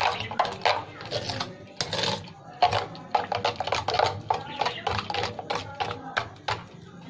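Steel spoon stirring a thick yogurt and spice marinade in a metal bowl, clinking and scraping against the bowl's side in quick, irregular taps.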